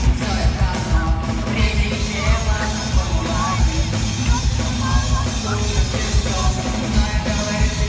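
Loud live rock music: a band with drums keeping a steady pounding beat and electric guitar, and a singer shouting the vocal over it.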